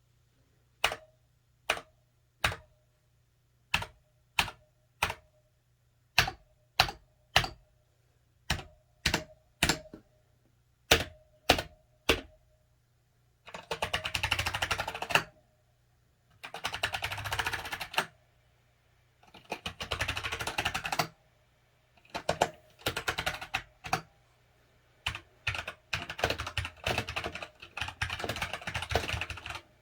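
Keychron K4 mechanical keyboard with Gateron Brown tactile switches being typed on. For about twelve seconds single keystrokes come in groups of three, each with a short ring after it. After that come bursts of fast typing, each a second or two long, with short pauses between them.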